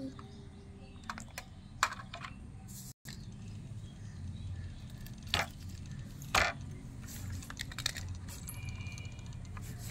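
Scattered light clicks and taps of a plastic toy ambulance being handled and moved along a toy road, with two sharper knocks about five and a half and six and a half seconds in, over a low steady rumble. The sound cuts out briefly about three seconds in.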